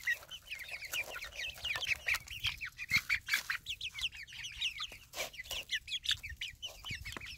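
Young chickens peeping and clucking as a flock at a feed pan: many short high chirps, several a second, with scattered sharp taps as they peck at the feed.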